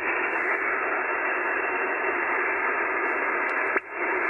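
Steady single-sideband receiver hiss on the 20-metre band from the external speaker of an ICOM IC-7100 transceiver, with a brief dip near the end. No station can be copied in the noise; the operator is listening for a faint station to come back.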